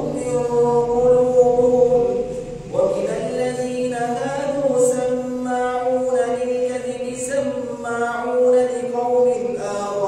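A male imam reciting the Quran aloud in a slow, melodic chant during prayer, drawing out long held notes, with a new phrase starting about three seconds in.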